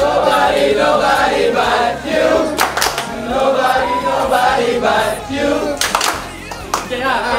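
A group of men singing loudly together, with a few sharp claps or shouts among the singing.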